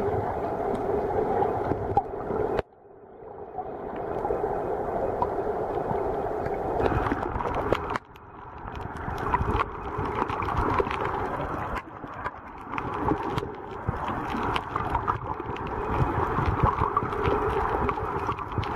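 Muffled underwater water noise picked up by a submerged waterproof camera, a steady dense wash with gurgling, broken off abruptly three times where the footage is cut.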